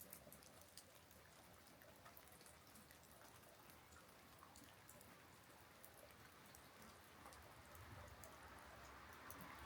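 Faint, gentle rain: scattered raindrops ticking over a soft hiss that grows a little louder near the end.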